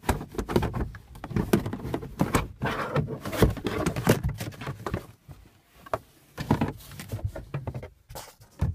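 Irregular knocks, clicks and rustling from the stowed jack and its plastic cover being handled, with short quieter gaps partway through and near the end.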